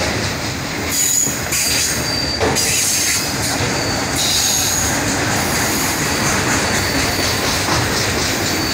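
Freight train autorack cars rolling past with a steady loud rumble and rattle of steel wheels on the rails. Short high-pitched metal squeals come from the wheels several times, about a second in, near two and four seconds, and again at the end.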